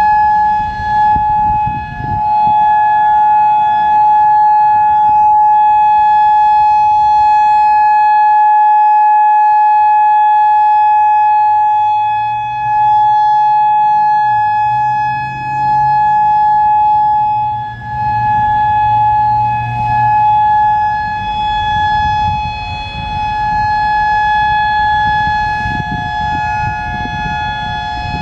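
Whelen WPS-4004 electronic outdoor warning siren sounding its steady full-alert tone, one unbroken high note. Its loudness swells and fades every few seconds as the rotating speaker array turns.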